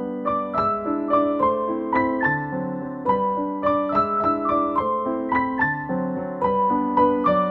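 Background piano music: a gentle melody of evenly paced single notes over held lower chords.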